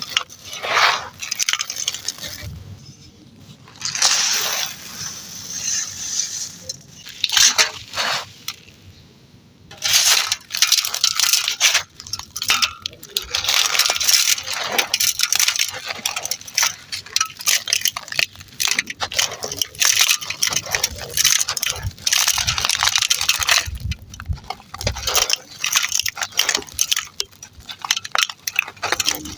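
Dry, gritty material being crumbled and crushed, giving dense, irregular crunching and crackling. It pauses briefly twice in the first third, then runs on in quick crunches.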